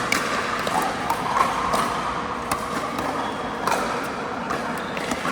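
Pickleball play: paddles striking the plastic ball and the ball bouncing on the court floor, heard as about ten short sharp pops at irregular spacing over a steady background din.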